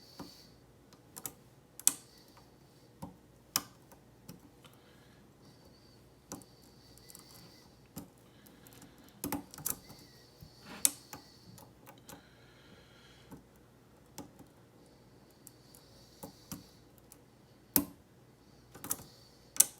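Lock pick and tension bar working pin tumblers in a Schlage SC1 KIK cylinder: irregular sharp clicks, a few of them loud, with faint scraping between them as the pins are lifted and set.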